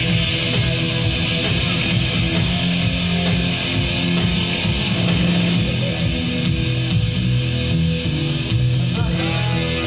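Loud guitar music with a steady bass line, playing for dancing.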